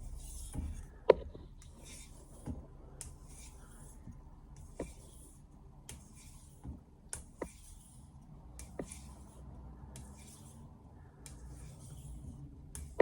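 Steel blade of a Victorinox 210mm kitchen knife drawn in light strokes across a Chosera 3000 whetstone to remove the burr: a short hiss about once a second, with occasional sharp clicks, the loudest about a second in.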